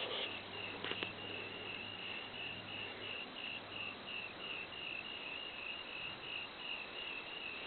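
A cricket chirping steadily, about three short, high chirps a second, evenly spaced.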